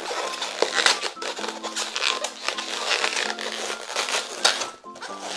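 Latex 260 twisting balloon rubbing and squeaking in the hands as a twisted bubble is wrapped around the figure. Soft background music with steady held notes plays underneath.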